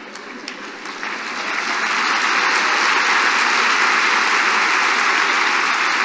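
Audience applause, swelling about a second in and then holding steady and loud.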